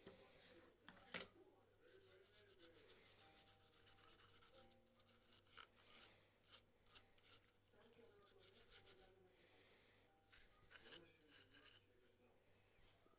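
Faint, irregular scraping and rubbing strokes with a few small sharp clicks, typical of small hand tools working on a phone during repair.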